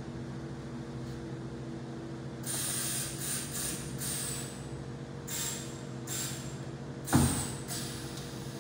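PVC fabric welding machine humming steadily, with several short hissing bursts from about two and a half seconds in and one loud thump about seven seconds in.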